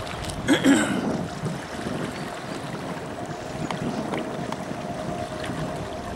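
Water splashing and lapping around a small cardboard boat moving across the water. A brief louder splash-like sound comes about half a second in, over a steady faint hum.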